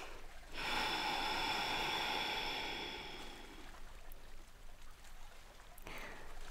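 A person breathing audibly: one long, airy breath lasting about three seconds, starting about half a second in, then a fainter breath begins near the end.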